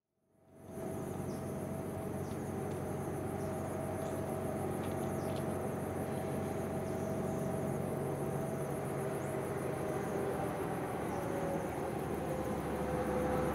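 Insects chirring steadily in a forest, with a few short bird chirps, over the low steady drone of an approaching diesel locomotive hauling a freight train, its engine note dropping slightly near the end.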